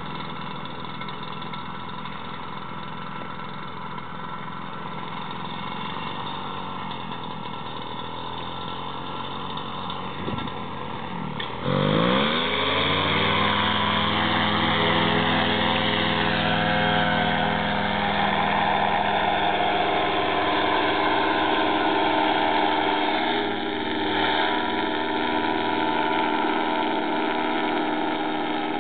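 Parapower paramotor engine and propeller idling, then throttled up sharply about twelve seconds in, the pitch sweeping upward to full take-off power and holding steady from there on.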